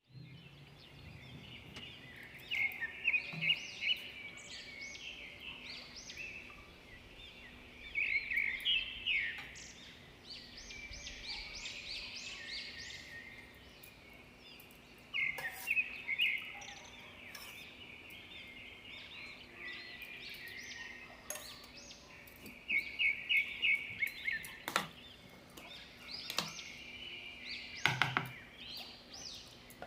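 Birds chirping in repeated bouts of quick, high calls, with a few sharp clicks or taps in between.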